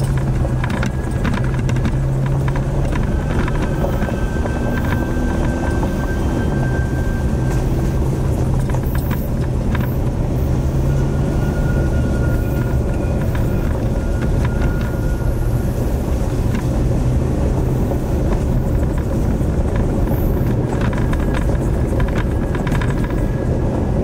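Car driving along a dirt road, heard from inside the cabin: a steady engine hum under road noise, with frequent small knocks and rattles from the rough surface.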